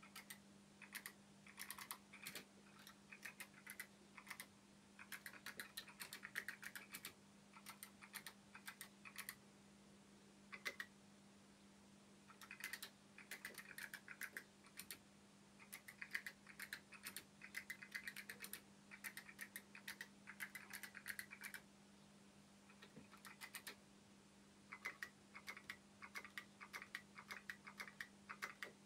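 Faint typing on an Olympia electric typewriter's keyboard: quick runs of key clicks with short pauses between them, over a steady low hum.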